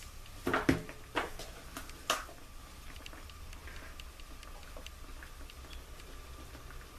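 A few sharp taps and knocks from seasoning containers being handled and shaken over a frying pan, the loudest in the first two seconds, then faint scattered ticks as pork chops simmer in water in the pan.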